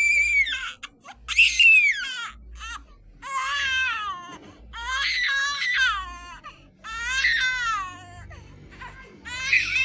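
Baby crying sound effect, played slightly sped up and higher in pitch: a run of wailing cries about a second long, each rising and then falling in pitch, with short gaps between them.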